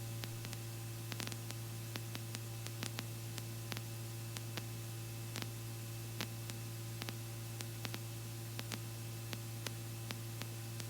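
Helicopter intercom audio between transmissions: a steady low hum under a hiss of static, with scattered faint clicks.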